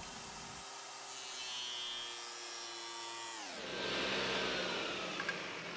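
Table saw with a dado blade running without cutting, then switched off about three and a half seconds in: its motor whine drops sharply in pitch and keeps sliding lower as the blade winds down.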